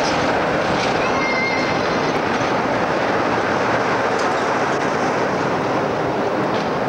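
British Rail Class 47 diesel locomotive with a Sulzer twelve-cylinder engine, running steadily as it draws slowly alongside the platform at close range with its train. A brief faint squeal comes about a second in.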